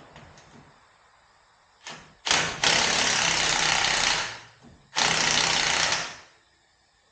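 Cordless power tool running in two bursts of about two and one seconds, each winding down as the trigger is released, preceded by a brief short whir.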